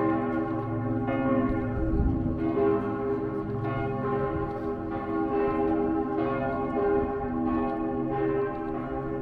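Several church bells ringing together, a new strike about every second layered over the lingering hum of the earlier ones.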